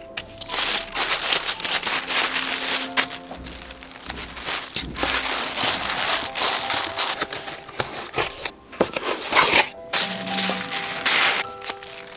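Thin tissue paper rustling and crinkling as it is handled and folded around items in a cardboard shipping box, in close, irregular rustles with short pauses.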